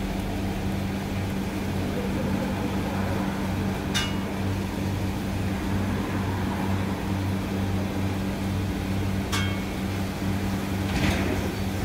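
A steady, low machine hum, like a motor or fan running, with a sharp click about four seconds in and another about nine seconds in.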